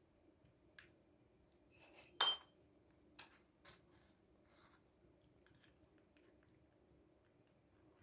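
Small brass and copper toy kitchenware clinking as it is handled: one sharp clink with a brief ring about two seconds in, then a few lighter taps and clicks.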